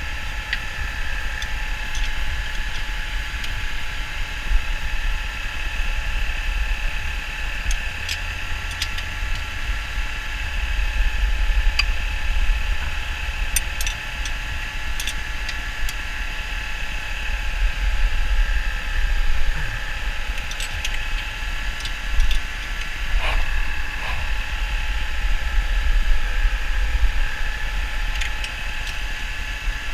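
Squarebody GMC truck engine, fitted with an oversized camshaft, running at a raised idle of just over 1,000 rpm at operating temperature, with occasional light clicks scattered through it.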